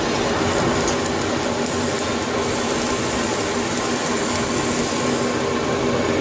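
Steady site noise: a constant machinery hum with a fine crackle running over it, fitting a welding arc in use on pipe.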